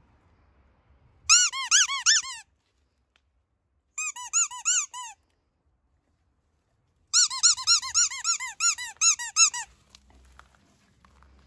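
Rubber squeaky toy buffalo squeezed in three runs of quick squeaks, each squeak a short rise and fall in pitch. The last run is the longest, about a dozen squeaks.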